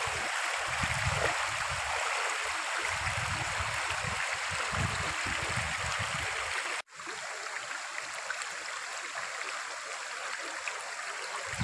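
Shallow stream running over rocks: a steady rush of water, with uneven low rumbles through the first half. The sound cuts out for an instant about seven seconds in, then the water carries on.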